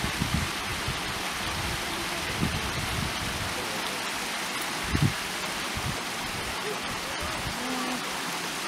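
Steady rushing noise of water, with a few low bumps, the loudest about five seconds in, and faint distant voices.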